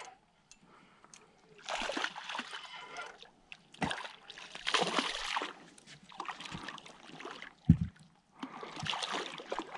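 Hooked channel catfish splashing and thrashing at the surface beside the boat as it is reeled in, in four bursts a second or so apart. A short, loud thump near the end.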